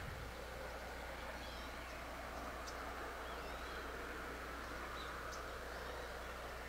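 Faint open-country ambience: a steady hiss over a low hum, with a few short, high bird chirps scattered through it.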